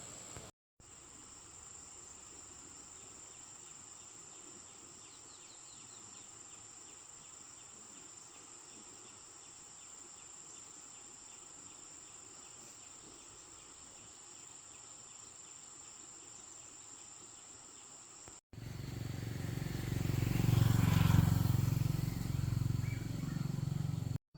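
Insects chirring in a steady, high, thin drone. Near the end it cuts off suddenly and gives way to a louder, rumbling noise.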